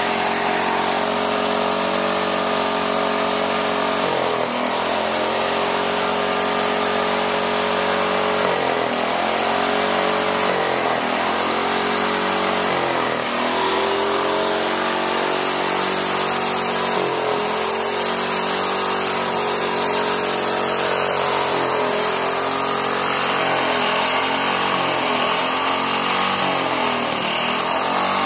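Briggs & Stratton single-cylinder lawn mower engine running on oxygen and fuel with no throttle or choke butterfly. Its speed sags and recovers every second or two, then climbs near the end.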